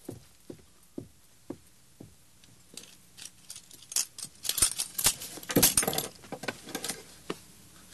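Boot footsteps on a wooden floor, about two a second, then a louder scuffle of rustling cloth and metallic clinks as one man grabs another in bed.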